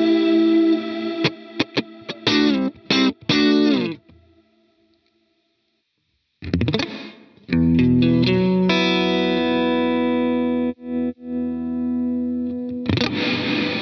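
Electric guitar played through a FLAMMA FS02 reverb pedal: a ringing held chord, then a run of short chord stabs that cuts off abruptly, about two seconds of silence, then chords again into a long sustained chord that drops out briefly twice before a fresh strum near the end.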